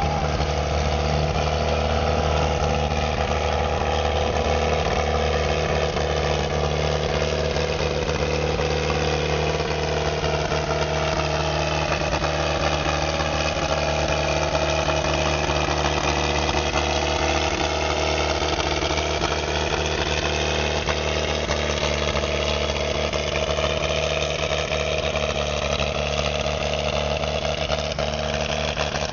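A large engine running steadily, with a higher whine that sinks in pitch through the middle and climbs again near the end.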